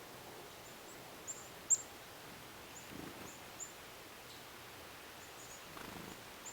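Faint outdoor ambience with scattered short, high-pitched chirps, one sharper and louder than the rest a little under two seconds in.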